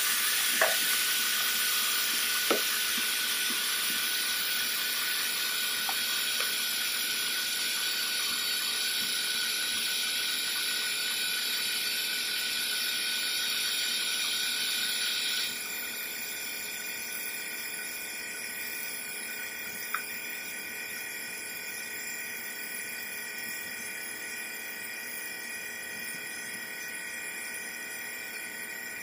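Steady background hiss with a few short, sharp clicks as a plastic bumper cover is worked with a screwdriver. About halfway through, the hiss suddenly drops in level.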